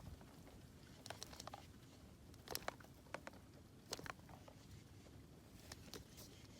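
Near silence with a few faint taps and clicks of a Magic 8 Ball being handled while its answer comes up.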